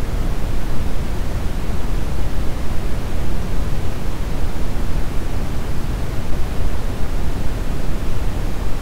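Synthetic brown noise: a steady, even rushing hiss weighted toward the low end, with no changes or events.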